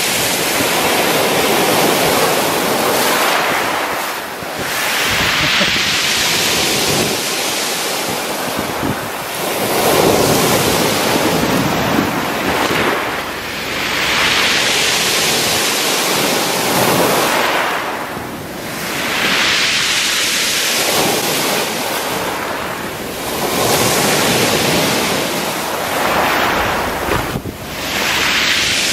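Black Sea surf breaking at the shoreline and washing up the beach, surging and falling back every few seconds.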